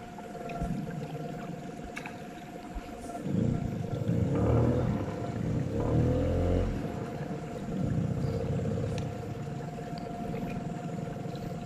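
An engine running steadily with a constant whine, growing louder for a few seconds in the middle.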